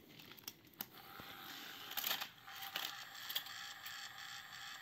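Small electric motor of a battery toy train engine running with a steady thin whine that starts about a second in, with scattered clicks and clatter of the plastic toy engines being handled, the loudest a couple of seconds in.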